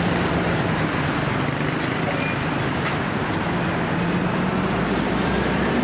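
Road traffic noise led by a heavy articulated lorry's diesel engine running steadily as the loaded truck drives away down the road, with tyre noise on the tarmac.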